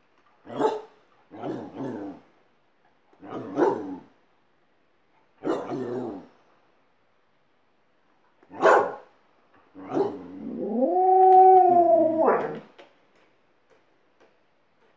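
A dog vocalizing: five short calls spaced one to two seconds apart, then a drawn-out howl about ten seconds in that rises in pitch, holds steady for about two seconds and ends in a short final call.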